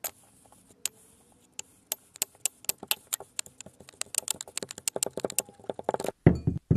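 Kinetic sand crunching and crackling as a clear tube is pressed down into it: a run of sharp crackles that starts about a second and a half in, grows denser, and stops about six seconds in.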